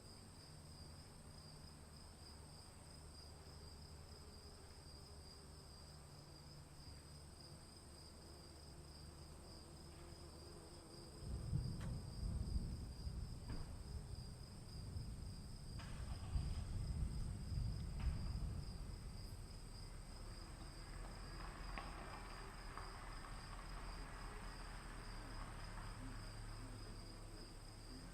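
Insects keep up a steady high-pitched chirring while a roll of thunder rumbles in about eleven seconds in, the loudest sound, and fades over the next several seconds.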